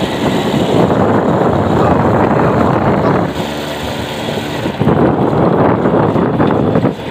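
Wind buffeting the microphone while riding a small motorbike, with the engine's steady hum coming through more clearly for a second or so about halfway through.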